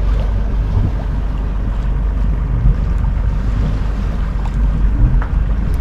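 Loud wind on the microphone over the wash of small waves on choppy water, heard aboard a sailing yacht underway.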